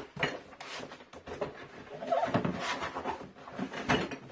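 Parts and packaging of a boxed bird feeding station being handled: irregular rustling with scattered knocks and clicks.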